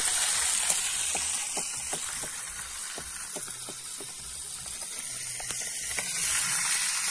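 Fish frying in hot oil in a pan: a steady sizzling hiss with many scattered crackling pops.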